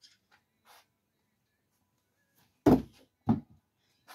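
Thrown screwdriver striking the wooden target: two sharp knocks about half a second apart, a little under three seconds in, the first the louder.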